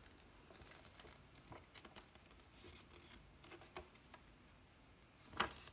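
Faint rustling and crinkling of a folded paper instruction leaflet being opened out and held in the hands, with a slightly louder rustle near the end.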